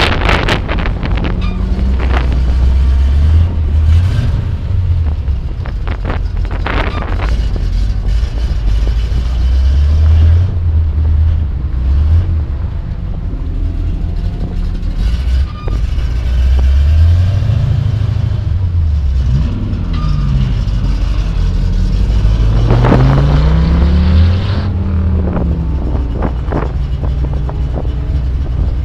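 1965 Chevrolet El Camino's engine idling and pulling forward at low speed, a steady low rumble. The engine note rises and falls several times in the second half.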